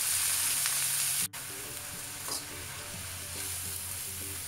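Napa cabbage and vegetables sizzling in hot oil in an iron wok while being stir-fried with a metal spatula. The sizzle drops abruptly in level a little over a second in, then carries on more quietly with a brief spatula scrape.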